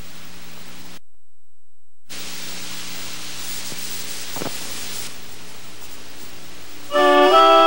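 Steady hiss with a faint low hum from an old analog tape transfer, with no programme sound; it drops out completely for about a second early on, then comes back. Music starts near the end.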